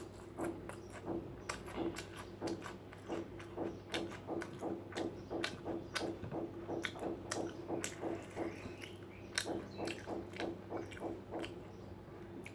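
A person chewing food close to the microphone, with wet mouth clicks and smacks at about two to three a second.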